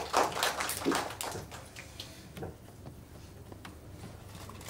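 Audience applause, a dense patter of clapping that dies away after about a second, followed by a few scattered clicks and knocks.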